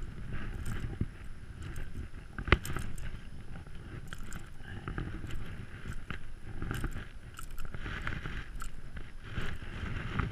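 Close handling noise: a nylon rain jacket rustling and scraping, mixed with wind buffeting the microphone, while a caught largemouth bass is unhooked by hand. There is a single sharp click about two and a half seconds in.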